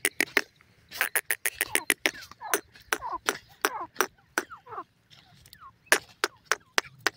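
Grey francolins calling: short falling chirps between about two and a half and five seconds in, among quick runs of sharp clicks, several a second.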